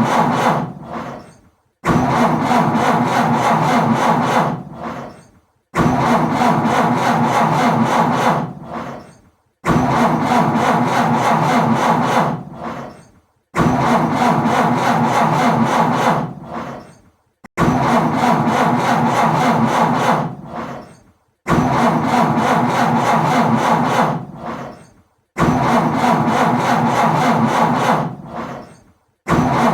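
Car starter cranking the engine over without it catching, attempt after attempt. Each try grinds for about two and a half seconds, then runs down and stops, and the next begins about four seconds after the last.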